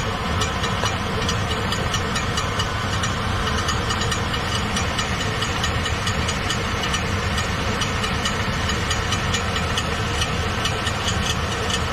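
Chevy Silverado engine idling steadily, with a fast, light metallic ticking running through it.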